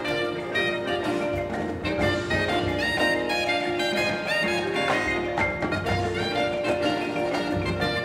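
Marching band playing, with held brass and wind chords under quick, ringing mallet-percussion notes.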